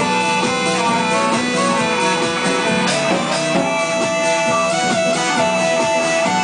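Music: a song played on guitar, with a lead line of long held notes stepping up and down over a steady accompaniment.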